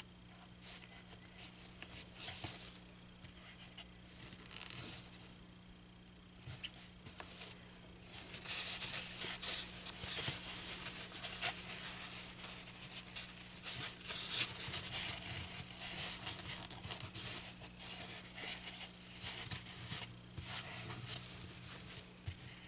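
Fabric rustling and scratching against a styrofoam pin board as it is smoothed and worked into place. There are a few scattered rustles at first, then a busier run of scratchy strokes from about eight seconds in.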